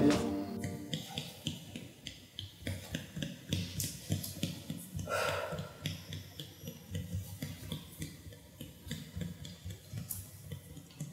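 Soft, irregular clicks and taps, many in a row, with a short breathy rush about five seconds in.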